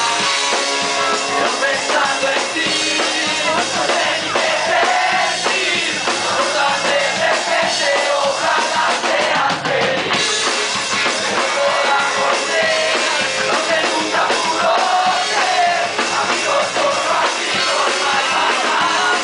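Live punk rock band playing loud and steady: electric guitars and a drum kit, with a man singing into the microphone.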